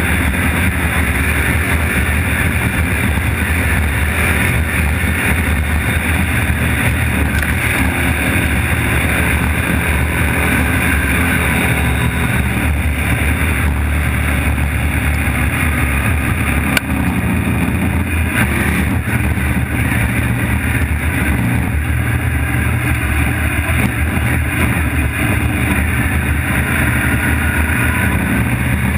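Trophy truck driving fast over a gravel desert track: a loud, steady engine under load, mixed with the rush of tyres on gravel, heard from a camera mounted by the front wheel.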